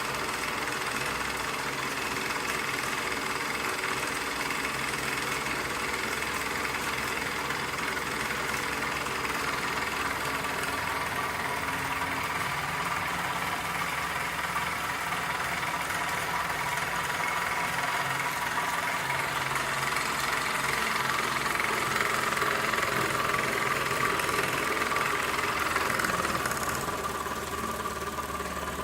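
Toy tin-plate live-steam engine running steadily, driving a model accessory. It grows a little louder for a few seconds about two-thirds of the way through, then settles back.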